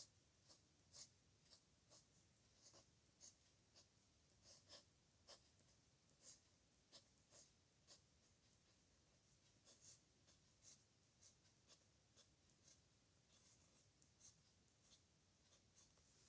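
Pen scratching on paper in handwriting strokes: a faint, uneven run of short, quick scratches, about two or three a second.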